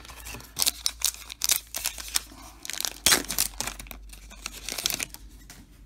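A baseball card pack's wrapper being pulled from the box, torn open and crinkled in the hands: a run of sharp crackles and rustles, loudest about three seconds in.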